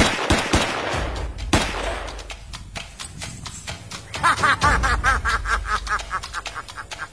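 Gunfire: a few single shots in the first two seconds, then a rapid run of automatic fire from about four seconds in.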